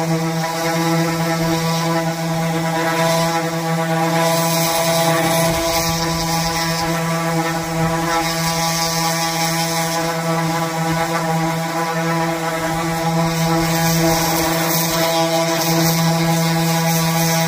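Electric random orbital sander running steadily with an even, pitched hum as its pad is worked across a wooden tabletop, sanding off the old finish.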